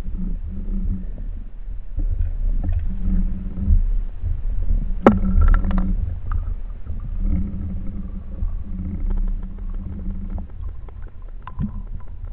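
Muffled underwater noise picked up through a waterproof camera housing on a speargun: a steady low rumble with recurring short hums and scattered clicks, the sharpest click about five seconds in.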